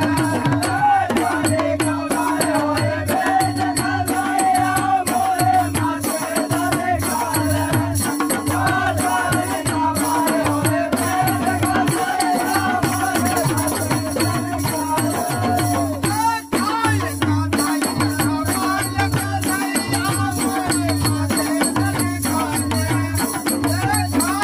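Men singing a Holi phag folk song together, accompanied by dholak barrel drums and small hand-held jingling clappers.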